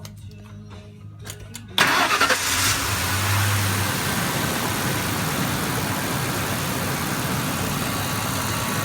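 1997 Ford F-150 CNG truck engine starting: a few clicks, then it catches suddenly about two seconds in and settles into a steady idle. With the faulty ignition coil replaced, the misfire is gone and it runs without shaking.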